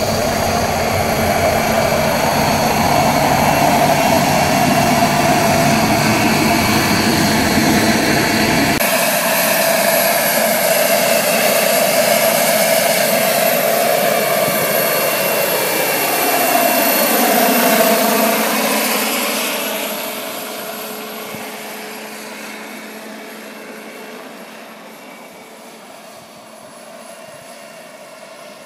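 Turbine-powered RC scale helicopter (JetCat SPT5 turbine mechanics) in flight: the turbine's high steady whine with the main rotor. It makes a close low pass about 17 seconds in, its pitch falling as it goes by, then fades as it flies off into the distance.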